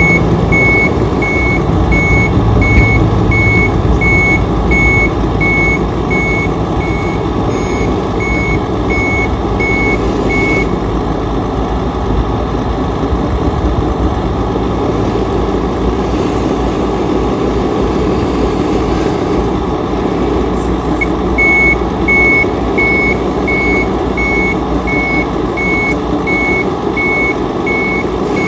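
Remote-control semi truck's sound unit playing a running truck engine with a reversing alarm beeping about one and a half times a second. The beeping stops about ten seconds in and starts again about twenty-one seconds in.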